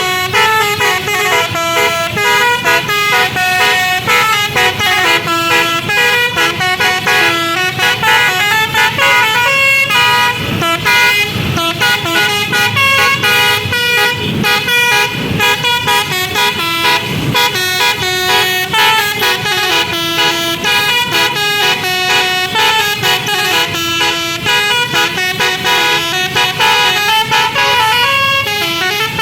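Basuri telolet multi-tone bus horn playing a long, continuous melody. Several horn tones sound at once and step to new notes every fraction of a second.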